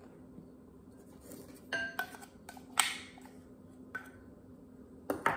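A spatula scraping and tapping inside a glass measuring cup, emptying powdered sugar into a bowl: a handful of short clinks and knocks of glass, the loudest about three seconds in and near the end.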